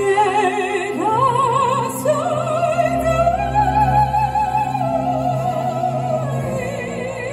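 Music: a classical, operatic singing voice with wide vibrato, holding long notes over sustained low accompaniment, and stepping up to a higher note about a second in.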